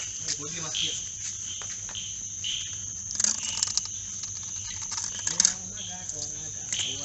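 Crickets chirring steadily in a continuous high trill, with a few short clicks and knocks around the middle and one sharper click a little past halfway.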